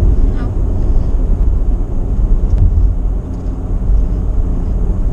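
Road and engine noise inside a moving truck's cab: a steady, loud low rumble.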